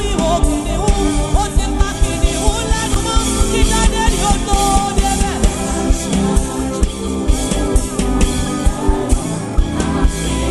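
Upbeat gospel praise music: a steady, even drum beat under melodic instrument lines, with some singing.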